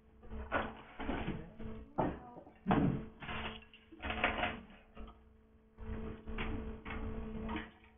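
Low voices and brief knocks and clatter, like chairs and desks being handled, over a steady electrical hum.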